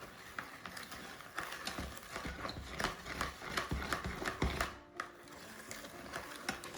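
Cake batter being mixed in a bowl, the utensil giving irregular clicks and knocks against the bowl.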